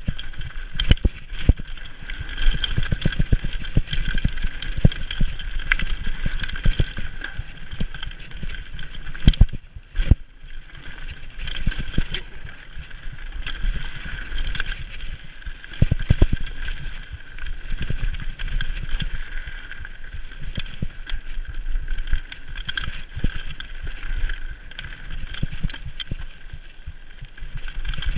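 Mountain bike riding fast down a rocky gravel trail: tyres crunching over loose stones, with frequent sharp knocks and rattles as the bike hits rocks and bumps, over a steady low rumble of wind on the microphone. A brief lull about ten seconds in.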